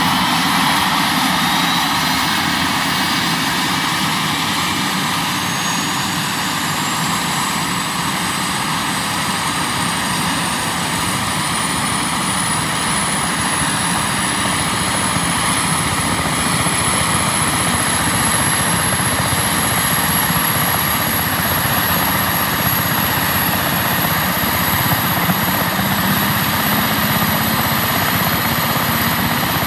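Airbus EC145 helicopter's twin turboshaft engines running, with a high turbine whine that rises in pitch for the first fifteen seconds or so and then holds steady over a loud, even rushing noise: the engines spooling up during start-up.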